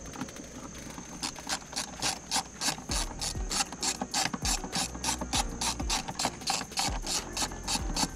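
Ratchet with an 8 mm socket clicking in quick, even strokes, about five a second, as it backs out the screws of a car's air filter box. The clicking starts about a second in.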